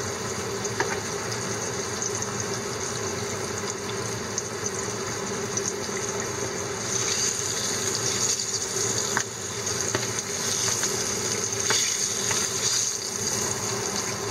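Hot oil sizzling and crackling steadily around opened horse mackerel deep-frying in a frying pan, with scattered small pops. The sizzle grows louder about seven seconds in, as the fish are moved and turned with tongs, and eases near the end.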